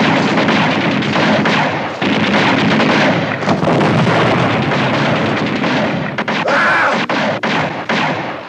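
Film battle soundtrack: a continuous din of gunfire and explosions, breaking into separate sharp shots in the last couple of seconds, with a brief high-pitched cry partway through.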